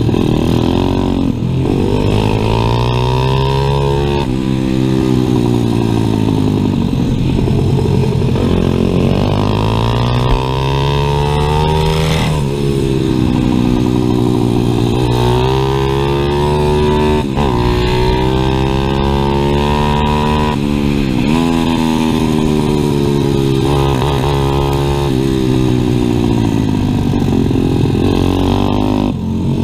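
Onboard sound of a stock 140cc pit bike's single-cylinder four-stroke engine at race pace, its pitch climbing and falling again and again as the rider shifts and rolls off for corners, with brief sharp drops in the revs several times.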